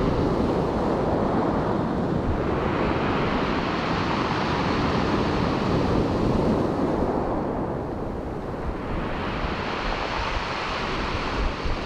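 Surf breaking and washing on a steep storm beach, rising and falling twice, with wind buffeting the microphone.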